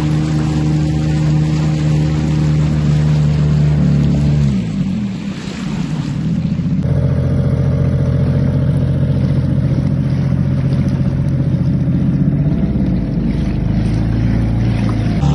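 Motorboat engine running steadily. Its pitch slides down and the sound weakens about four to five seconds in. Near the seventh second the sound changes abruptly, and the engine runs steadily again.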